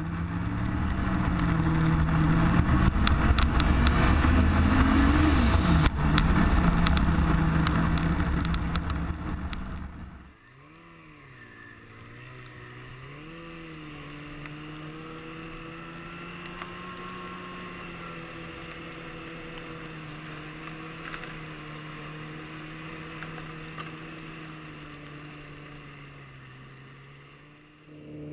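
Snowmobile engine running under way on a trail, loud with a rushing noise and rising and falling revs. About ten seconds in the sound cuts to a quieter, steady engine note whose pitch wavers, then settles, and it fades out near the end.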